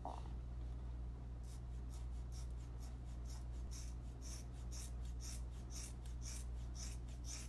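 Scissors chewing through a thick braid of long hair: a run of short crunchy snips, about two or three a second, starting about a second and a half in and growing louder, over a steady low hum.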